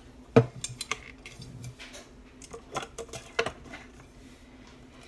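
A tumbler handled and set against a wooden cup turner: a few sharp knocks and clinks, the loudest about half a second in, with more around three seconds in.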